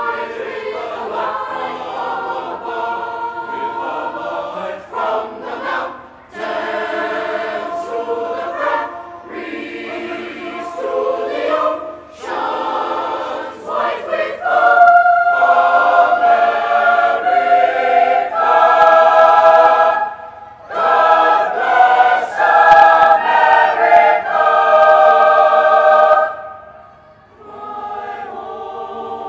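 Boys' choir singing in harmony, held chords with short breaks between phrases, swelling to a loud passage about halfway through and dropping away near the end.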